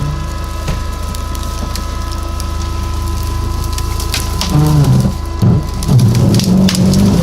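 BigBo all-terrain vehicle's engine running with a steady low rumble over crackling and snapping of brush and branches. About four and a half seconds in, the engine revs up and falls back several times.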